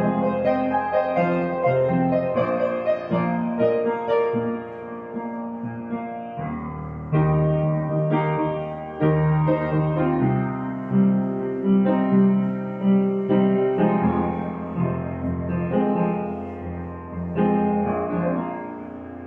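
Background piano music, notes struck one after another and dying away, with no other sound over it.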